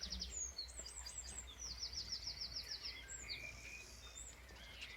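Birds singing: scattered high chirps and a fast trill of evenly repeated notes around the middle, over a steady low rumble.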